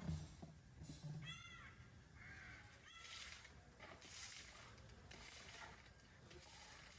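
Faint caws of a crow-like bird, a short call about a second in and a weaker one near three seconds, over quiet room tone.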